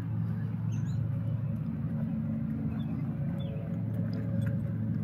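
A steady, low engine hum with a few faint, high chirps over it.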